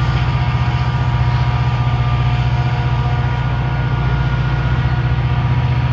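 Engine running steadily: a strong low hum with a fine rapid pulse and a few steady higher tones, unchanging throughout.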